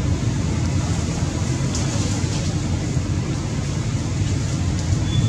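A steady low rumble, with a few faint ticks above it.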